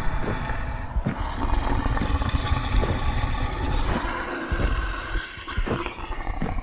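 Elephant sound effect: a loud, continuous low rumbling with growling tones over it, broken by several heavy thuds.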